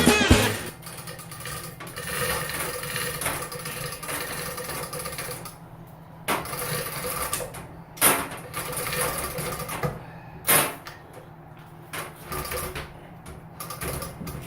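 A steady low machine hum, with a few sharp knocks about six, eight and ten and a half seconds in.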